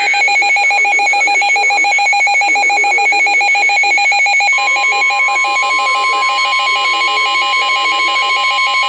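A weather radio receiver's alert alarm: a loud, fast-pulsing beeping tone. About four and a half seconds in it is joined by the steady NOAA Weather Radio warning alarm tone, which announces that a warning message follows.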